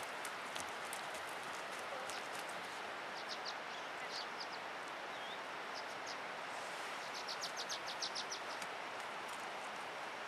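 Steady outdoor background hiss, with a few quick runs of short high ticks about three, four and seven seconds in.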